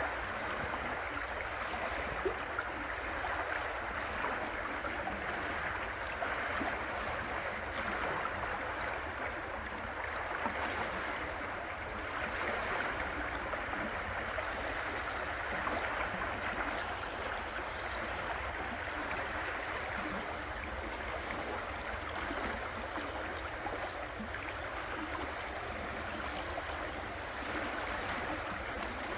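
River water flowing and rushing in a steady, unbroken wash.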